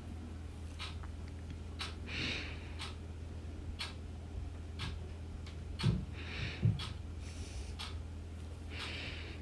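Clock ticking about once a second over a low steady hum, with three short breathy puffs and two dull thumps a little past the middle.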